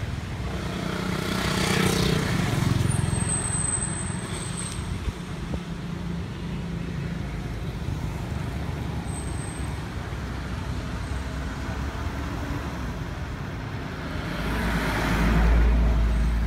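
Road traffic going past: a steady vehicle rumble that swells as one vehicle passes about two seconds in and another near the end.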